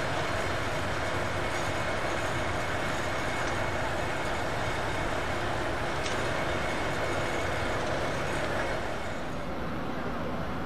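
Steady running noise of a vehicle, an even rumble with faint steady hums, easing slightly about nine seconds in.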